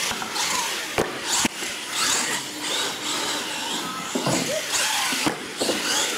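Radio-controlled monster truck's electric motor whining, its pitch rising and falling as the throttle is worked. The truck lands from a jump with a hard knock about a second in and a second one half a second later, and knocks once more near the end.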